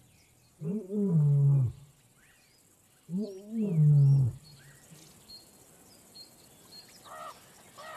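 A lion roaring: two long, deep moaning calls a couple of seconds apart, each rising and then falling in pitch. Faint bird chirps in the background.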